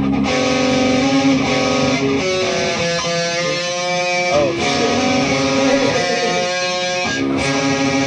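Electric guitar playing sustained notes and chords that change every second or two, with a bent note about four and a half seconds in.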